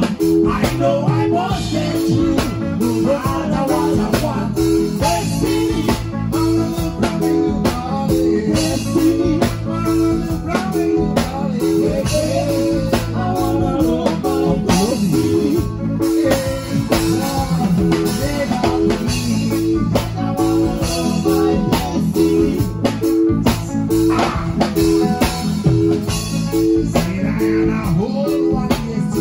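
Band playing an instrumental sound-check groove: guitar over a repeating bass figure and a steady drum-kit beat.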